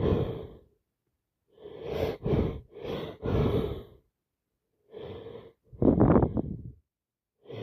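A person's breaths in short, separate bursts with pauses between them, about six in a row, as a sneeze builds up. The loudest comes about six seconds in.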